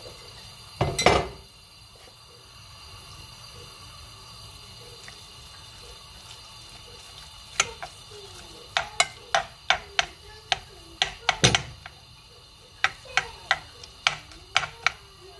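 A metal spoon stirring a chicken-and-onion mixture in a granite-coated nonstick saucepan, clinking against the pan's sides two or three times a second through the second half. A single heavy knock comes about a second in.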